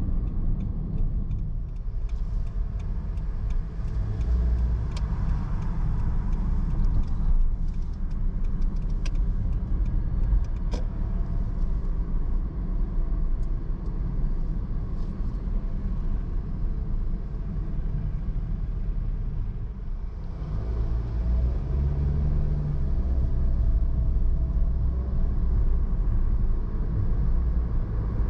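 A car being driven: steady low rumble of the engine and tyres on the road, with a few faint sharp clicks in the first half.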